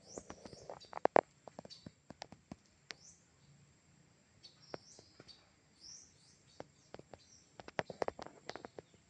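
Small birds chirping in short notes that sweep up and down, mixed with scattered sharp clicks and taps. The clicks bunch about a second in and again near the end.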